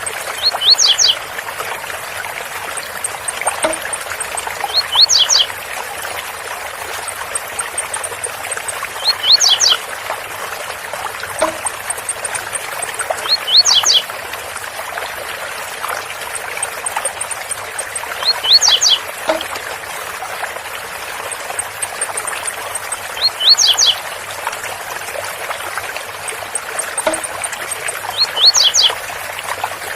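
Blue-black grassquit (tiziu) singing its 'zel zel' song, a short burst of quick high rising notes repeated at even intervals of about four and a half seconds as a looped training recording. A faint series of very high ticks falls between the songs. A steady waterfall rush runs underneath.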